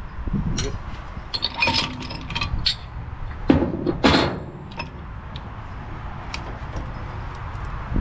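Metal clicks and clinks of a portable hydraulic hose-crimping press being opened and lifted off a freshly crimped fitting, with two louder knocks about three and a half and four seconds in, over a low steady rumble.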